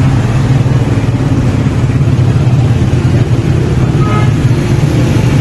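An engine running steadily with a loud, even low hum. A brief faint higher tone comes in about four seconds in.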